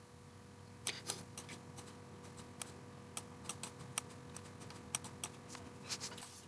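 Faint, irregular clicks of a computer mouse, about three a second, over a faint steady hum.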